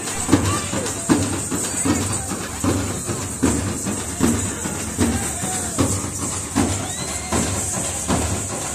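A band of dappu frame drums beaten in a steady, driving rhythm, with a strong accented beat about every three-quarters of a second and lighter strokes between, over crowd voices.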